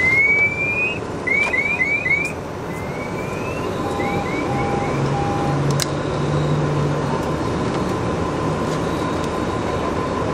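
Airport crash rescue truck running at a fire scene: a steady rumble and hiss. Over it come a series of quick, high rising chirps in the first half and three short beeps about four seconds in.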